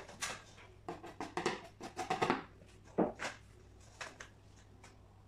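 A metal springform cake ring and a cardboard cake board being handled and set down on a table: a run of short knocks, clatters and scrapes, with the loudest knock about three seconds in.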